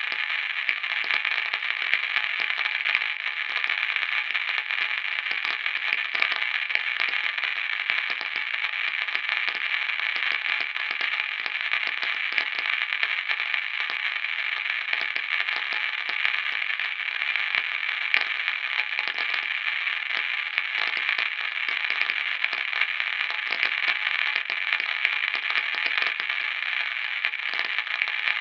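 Steady crackling static hiss, like an untuned radio, thin-sounding and without bass.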